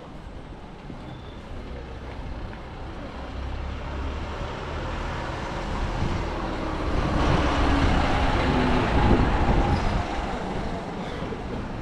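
A motor vehicle passing close by on the street, its engine and tyre noise swelling to a peak about eight seconds in, then easing off.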